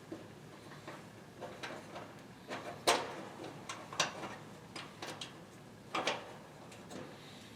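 Scattered small clicks and taps of a small screwdriver and screw being worked against the dryer's rear bearing plate while trying to start the screw. The sharpest clicks come about three, four and six seconds in.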